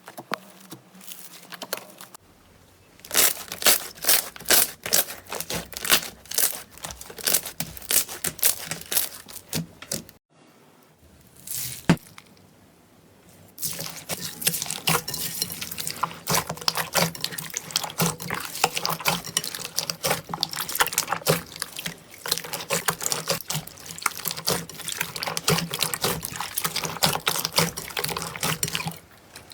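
Slime being squeezed and pressed by hand, making dense wet clicks and pops. The sound breaks off briefly about two, ten and fourteen seconds in.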